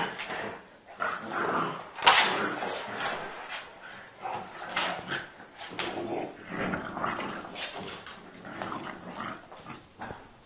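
Two dogs, a pit bull and a French bulldog, wrestling and growling in short, irregular bursts, the loudest about two seconds in, growing quieter toward the end.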